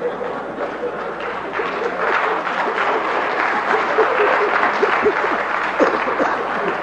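An audience applauding, with scattered voices calling out. The clapping swells about two seconds in and tapers off near the end.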